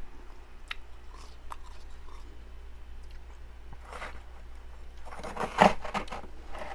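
A person biting and chewing crunchy freezer frost close to the microphone: a few faint crackles, then a louder run of crunches about five seconds in.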